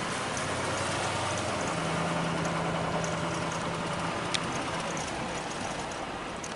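A vehicle's engine running with a steady low hum over a broad rush of road noise.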